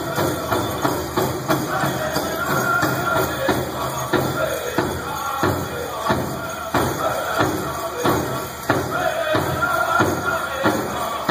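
Powwow drum group singing over a steady beat on a big drum, the song for a round bustle dance competition.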